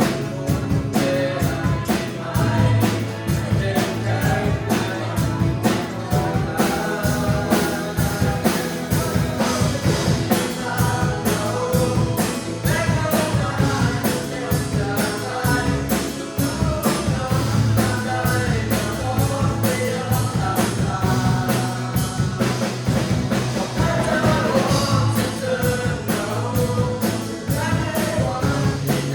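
Christian worship song: singing over a full band with a steady drum beat.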